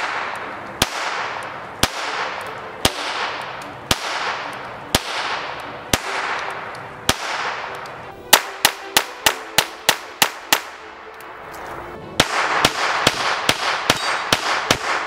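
CZ Model 45 .25 ACP pocket pistol firing, each sharp crack trailed by an echo: a slow string at about one shot a second, then a quick string of about eight shots, then more shots near the end over background music.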